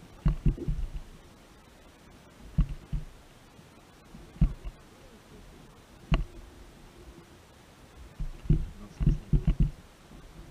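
Dull low thumps and knocks in irregular clusters, with one sharper knock about six seconds in.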